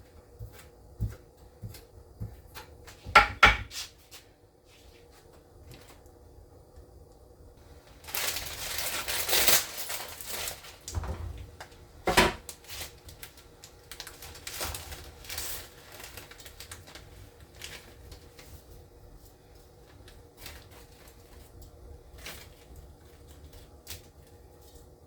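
Knife cutting up vegetables on a cutting board: irregular taps and clicks, with a few louder knocks and a longer noisy burst of a couple of seconds about eight seconds in.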